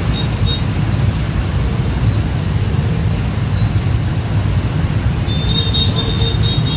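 Dense street traffic of many motorbikes and scooters with a city bus and cars: a steady low rumble of small engines. From about five seconds in, short high-pitched tones sit on top of it.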